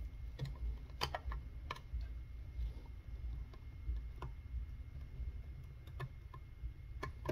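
Flathead screwdriver backing a butt-plate screw out of a wooden shotgun stock: irregular light clicks and ticks, a few at a time, over a low handling rumble.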